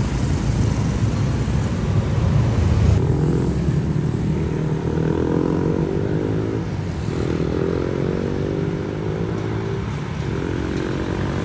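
Street traffic running steadily, with a motorcycle engine passing that rises in pitch in three or four successive runs from about three seconds in.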